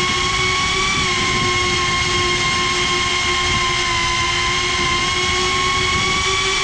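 GEPRC CineLog35 FPV cinewhoop's brushless motors and propellers whining steadily in flight, recorded close up by the GoPro on board. The pitch rises slightly about a second in and otherwise holds nearly level.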